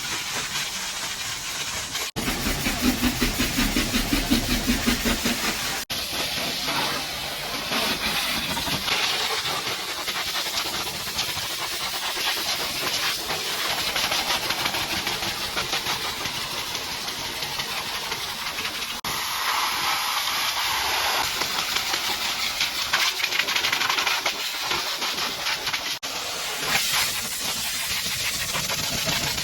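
High-pressure water jet from a pressure washer spraying against a truck's body, a steady hissing spray broken by brief cuts. From about two to six seconds in, a low pulsing rumble runs under the spray.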